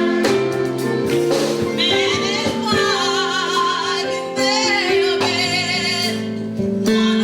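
Gospel music: a voice singing a held, wavering melody over sustained instrumental chords.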